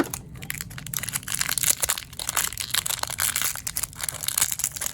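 Toy packaging being crinkled and crushed in the hands as it is opened, with a rapid, irregular run of crackles.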